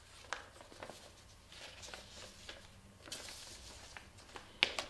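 Faint rustling and small clicks of paper sheets being handled and leafed through, with a brief swish about three seconds in and a sharp tick near the end.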